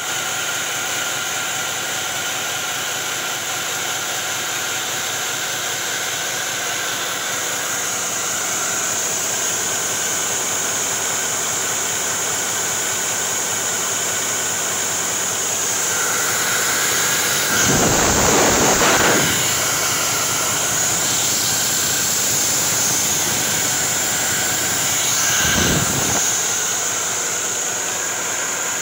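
2015 Cummins ISX15 inline-six diesel engine running on a test run, a steady drone with a high whine over it. It surges louder twice, for about two seconds around two-thirds through and briefly near the end.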